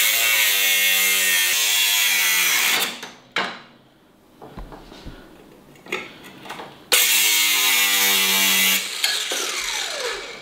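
Handheld angle grinder cutting metal off a motorcycle axle nut in two bursts, about three seconds and two seconds long, with a steady motor whine under the grinding hiss. After the second burst the disc winds down with a falling whine.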